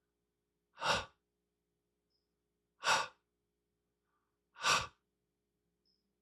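A voice saying the English /h/ sound three times: three short, breathy puffs of air about two seconds apart.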